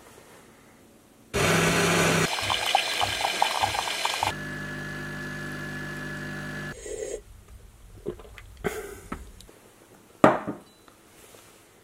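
Built-in bean-to-cup coffee machine brewing: first a loud rough grinding run with a pulsing rattle, then a steadier hum as its pump pushes coffee out of the spouts into a mug. After the machine stops there are a few light clicks and one sharp knock near the end.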